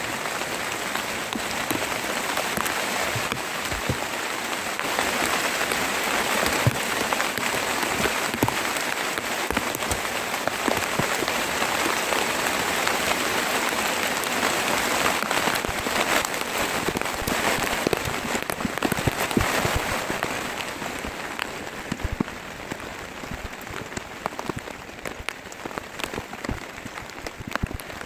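Heavy rain falling steadily, with many individual drops striking close by as sharp clicks; the downpour eases a little after about twenty seconds.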